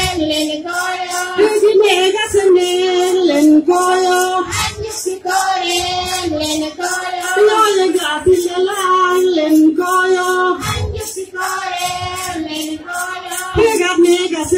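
Chorus of women's voices singing a Galo Poonu dance song together in steady repeated phrases, with a few short low thumps now and then.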